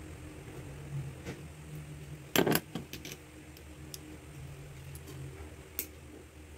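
Light metallic clicks of a car key and a small hammer being handled, with a sharp double knock about two and a half seconds in and a last click near the end, over a steady low hum.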